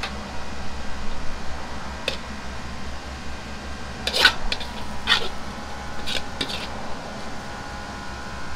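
Metal ladle scraping and clinking against a wok and plates as stir-fry is dished out, in several short scrapes through the middle, over a steady kitchen hum.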